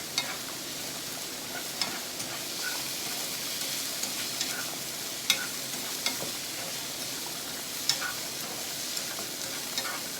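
Squid stir-frying over high heat in a pan: a steady sizzle, with a utensil clicking against the pan a few times as it is stirred.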